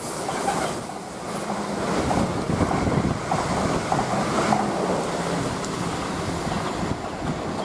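The last wagons of an engineering freight train rumbling and clattering past on the rails and drawing away, with a steady rush of noise and wind on the microphone.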